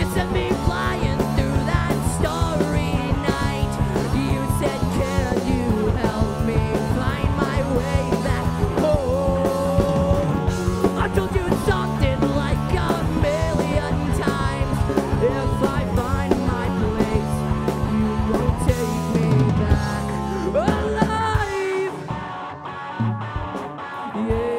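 Rock band playing live: drum kit and sustained low notes under an electric guitar lead line with bending notes. About 21 seconds in the drums drop out, leaving the guitar.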